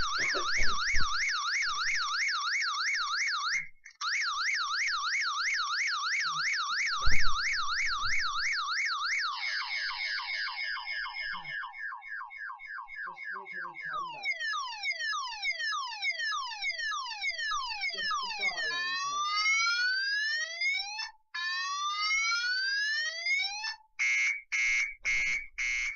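Electronic alarm siren cycling through several tones: a fast warble, then falling sweeps, then rising whoops, then quick pulsed beeps near the end. A single thump about seven seconds in.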